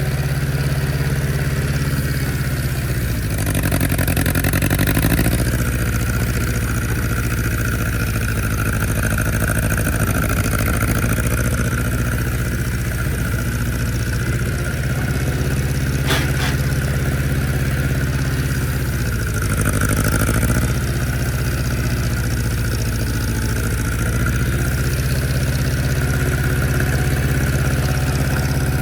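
A vehicle engine running steadily at low revs, its pitch shifting briefly a few times, with a single sharp click near the middle.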